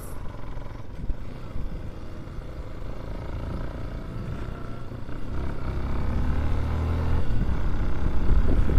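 Motorcycle engine running while riding, a steady low rumble that grows louder over the second half.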